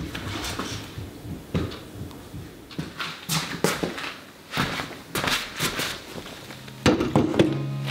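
Footsteps and light knocks, bumps and rubs as a white metal-and-wood furniture piece is lifted and moved over a wood-look floor. A soft guitar tune begins near the end.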